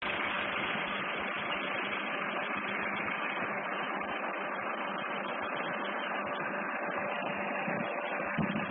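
An engine running steadily, a constant mechanical hum with no change in speed.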